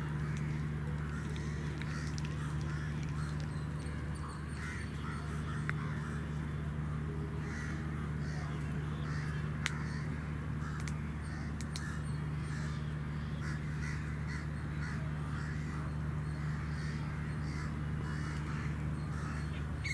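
Crows cawing on and off over a steady low hum.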